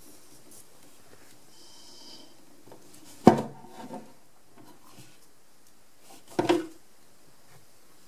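Two handling knocks in a quiet small room: a sharp one about three seconds in, then a softer thump with a brief rub about six and a half seconds in, from a hand and handheld camera bumping among the washing machine's supply hoses and pipes.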